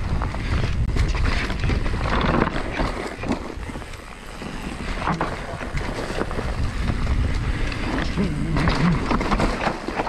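Mountain bike riding down a dirt forest trail, heard from a body-mounted action camera: wind buffets the microphone over the tyres running on dirt, with many short knocks and rattles as the bike goes over bumps. It eases off briefly about four seconds in.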